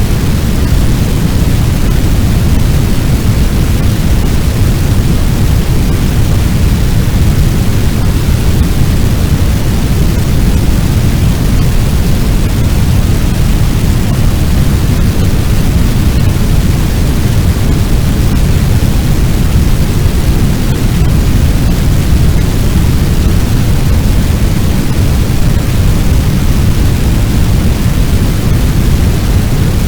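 Fire sound effect of a large blaze: a steady, loud, deep rushing noise that stays even throughout, with no distinct crackles or pops.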